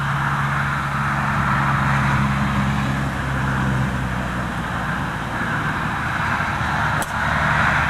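Road traffic passing close by: a steady traffic roar, with a vehicle engine's low hum that fades out about four and a half seconds in. A single sharp click about seven seconds in, a golf club striking the ball off the tee.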